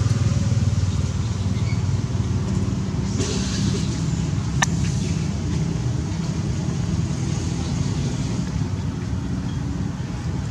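A motor vehicle's engine running nearby: a steady low rumble with a faint hum in it. One sharp click comes about four and a half seconds in.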